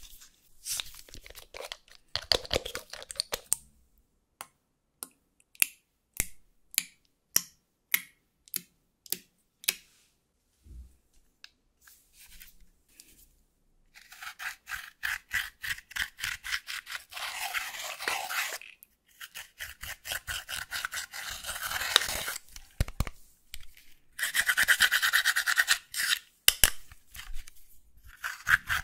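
A metal-tipped tool scraping pressed highlighter powder out of a makeup palette pan, in several bursts of fast, scratchy strokes through the second half. Before that, a string of single sharp clicks and taps as a small bottle is handled.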